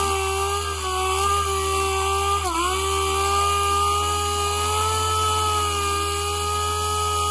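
DeWalt air sander running at speed on a spruce block, a steady high whine with its pitch dipping briefly about two and a half seconds in.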